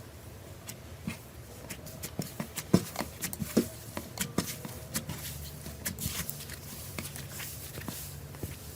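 Slime being squeezed and pressed by hand, giving irregular sticky pops and clicks that come thickest in the middle.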